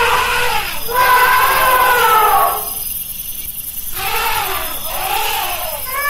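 Elephant trumpeting: high calls that rise and fall in pitch, with a pause of about a second and a half in the middle.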